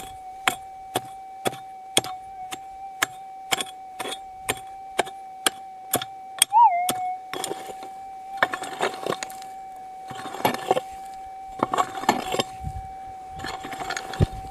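A Minelab GPX4500 metal detector holds a steady threshold hum, with a short warble about six and a half seconds in. Over it, a hand pick strikes hard, stony ground in sharp blows about twice a second, then digs and scrapes through the dirt in rougher bursts for the second half.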